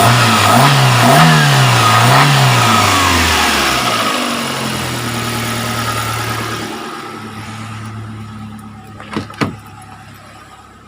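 Chery QQ 311 engine revved in three quick blips, then settling to a steady idle that grows fainter, with two sharp knocks near the end. It runs without misfiring now that the cracked high-tension spark plug wires have been replaced.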